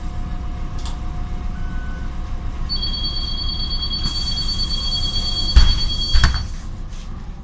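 Inside a Solaris Urbino 18 articulated bus standing at a stop, with a low engine rumble. About three seconds in, a steady high two-tone door warning signal sounds for about four seconds. Near its end two heavy thumps come as the doors shut.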